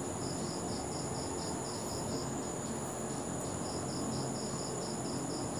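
A cricket chirping in a regular train of short high pulses, about four a second, that breaks off for over a second in the middle and then resumes, over a steady low room background.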